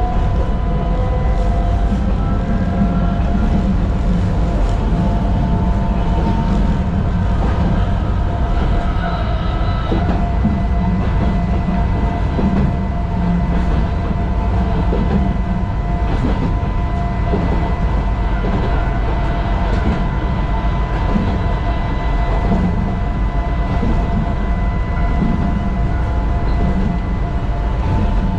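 Sangi Railway Hokusei Line 762 mm narrow-gauge electric train running, heard from inside the driver's cab: a steady low running rumble with a constant whine, and wheels clicking now and then over rail joints.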